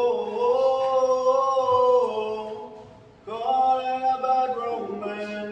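Men's voices singing without accompaniment: two long, held notes, the second beginning about three seconds in and dropping lower near the end.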